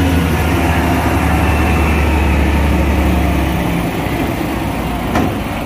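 Heavy diesel tractor unit's engine running close by, a loud steady low rumble that drops away after about three and a half seconds, leaving a quieter engine rumble; a single short knock near the end.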